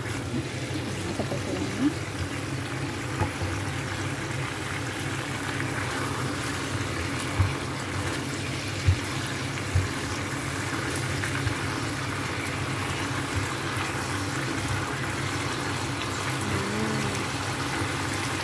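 Chicken in tomato sauce simmering in a nonstick frying pan while it is stirred with a silicone spatula, a steady bubbling hiss. About midway there are three sharp knocks of the spatula against the pan.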